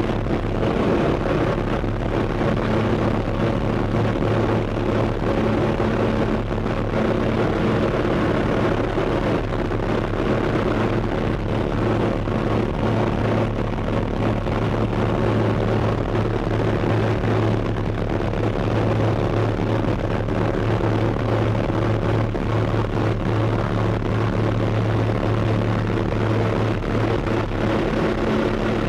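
Propeller engine of a skydiving jump plane droning steadily, heard from inside the cabin during the climb to altitude.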